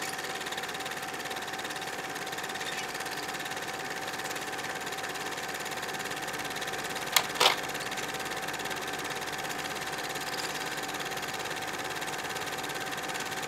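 Film projector running: a steady, fast mechanical whirring rattle with a faint steady hum. Two sharp clicks come about halfway through.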